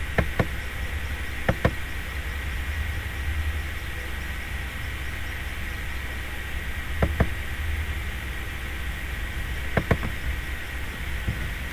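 Computer mouse button clicked four times, each click a quick pair of ticks, over a steady low hum.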